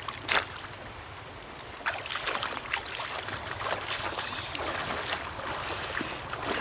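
Water splashing and trickling around an angler wading in a stream, with two brief airy swishes about a second and a half apart near the end, typical of a fly line being whipped forward and back in an overhead cast.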